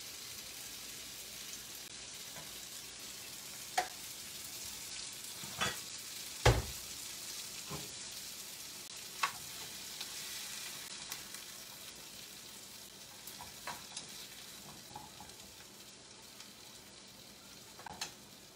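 Chickpea curry sizzling in a stainless frying pan on a gas burner, a steady hiss that slowly fades. A metal spatula scoops and scrapes in the pan, with about half a dozen sharp clinks against the metal, the loudest about six and a half seconds in.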